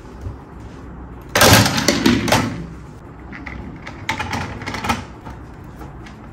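Hard plastic toy parts clattering and clicking against each other and the wooden tabletop as a toy jet and its carrier are handled: a loud burst of rattling clicks about a second and a half in, then a few lighter clicks.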